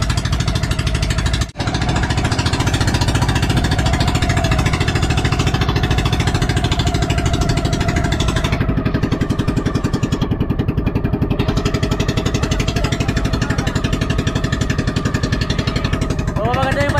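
Small engine of a motorized outrigger boat running steadily with an even, rapid firing rhythm as the boat moves under way, briefly cut off about a second and a half in.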